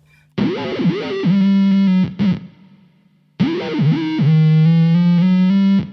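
Electric guitar played through an RPS Effects Arcade Machine pedal. The same short phrase sounds twice: a few bent notes, then a held low note with a buzzy, synth-like tone. Each time the pedal's strong gate cuts the note off abruptly.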